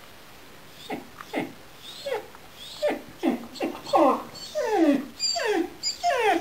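Gerberian Shepsky puppy whimpering and yelping in a series of falling cries, coming faster and louder from about three seconds in, while it mouths an orange squeaky rubber bone toy.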